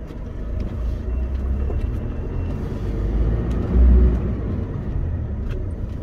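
Car running at low speed, heard from inside the cabin as a steady low engine and road rumble, with a brief louder low rumble about four seconds in.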